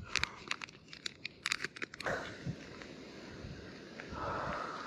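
Plastic bait packet of imitation maggots crinkling and crackling in the hands, a quick run of small crackles. About two seconds in this gives way to a steady outdoor hiss.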